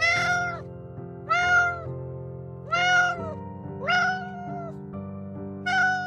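A cat meowing five times, each meow short and arching up then down in pitch, over steady background music.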